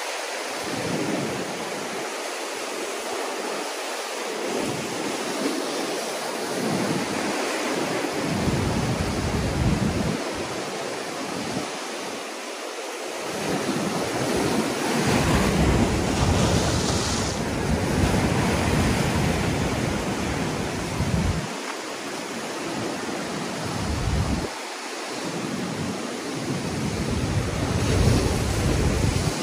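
Ocean swell surging and washing white over a rock ledge, with wind gusting on the microphone in low rumbles that come and go.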